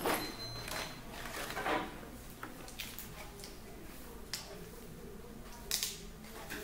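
Room tone with scattered light clicks and rustles of handling, the sharpest just after the start and about four and six seconds in.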